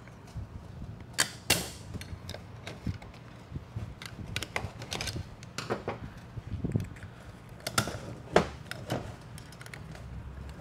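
Steel clutch parts and a snap ring clinking and scraping as they are worked out of a Ford 4R70W automatic transmission's reverse clutch drum by hand: scattered, irregular metal clicks and knocks.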